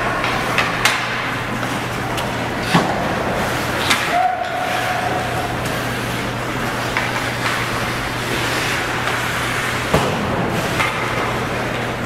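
Ice hockey game sounds in an arena: several sharp clacks of sticks and puck against a steady low hum and background noise of the rink.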